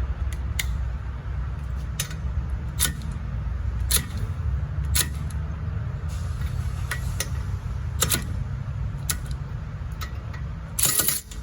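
Snap-on Brute cordless ratchet being tried on a bolt it fails to break loose: a series of sharp metallic clicks about a second apart over a steady low hum, with the loudest clicks near the end.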